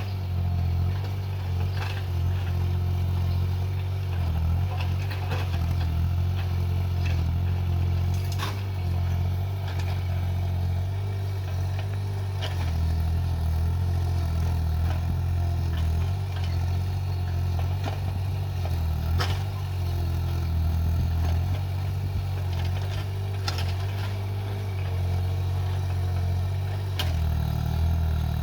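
Excavator's diesel engine running steadily with a low drone, with occasional sharp clanks every few seconds.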